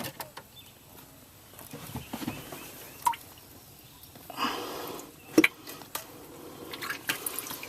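Light splashing and dripping of water with a few small clicks, a short swell of splashing a little past halfway, and one sharp knock just after it.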